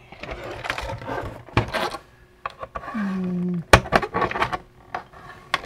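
Plastic case of a Tandy 102 portable computer being handled and pried open: rubbing and scraping, then a few sharp plastic clicks, the loudest about four seconds in.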